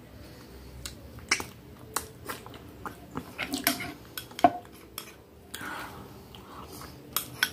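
A metal spoon scraping and clinking against a small glass dessert bowl while the last of the dessert is scraped up: a series of short, sharp clicks at uneven intervals, the loudest about four and a half seconds in.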